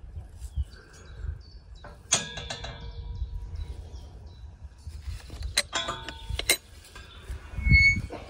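Outdoor field sounds: a low, gusty rumble of wind on the microphone, two spells of crackling rustle a few seconds apart, and a short, high bird chirp near the end.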